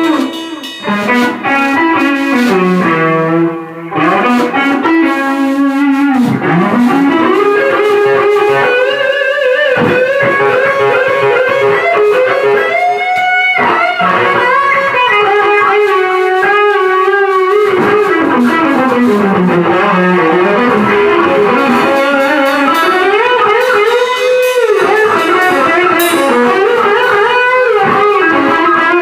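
Electric guitar playing a slow, sustained lead melody, its notes bent and wavering in pitch.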